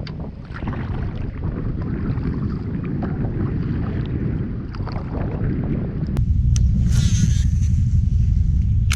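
Strong wind buffeting a GoPro's microphone: a steady low rumble that gets heavier about six seconds in, with a few scattered clicks.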